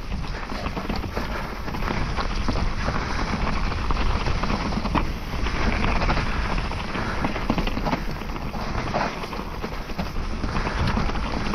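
Trek Remedy 7 full-suspension trail mountain bike ridden over rough dirt trail: continuous tyre and ground noise with many quick rattles and knocks from the bike, and wind on the microphone.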